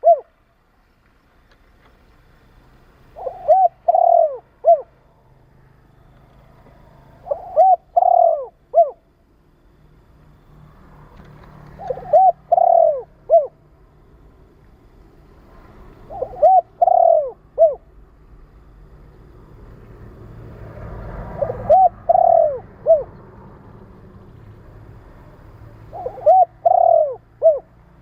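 Spotted dove cooing: a short phrase of three or four notes, repeated six times about every four and a half seconds.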